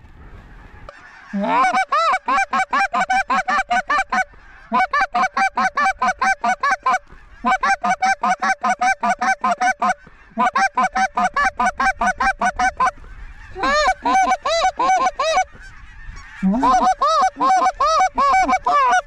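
Goose honks in fast, even runs of several calls a second, each run lasting two to three seconds with short pauses between.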